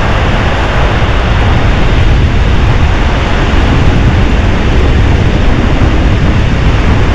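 Strong wind buffeting the microphone: a loud, steady rushing noise with a heavy low rumble.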